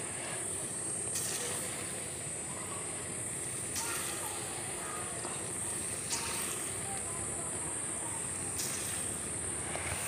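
Mango-batter fritters deep-frying in hot oil in an aluminium kadai: a steady sizzle and bubble, with a few faint clicks.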